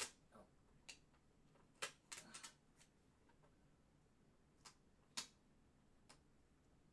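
Faint scattered clicks and light taps of plastic toy playset pieces being handled, over near silence.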